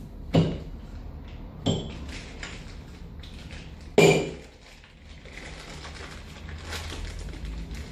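Hammer striking metal three times with ringing clangs, the third blow the loudest.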